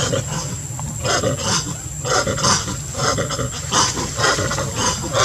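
Long-tailed macaques giving a run of harsh, screeching calls, about two a second, during a fight.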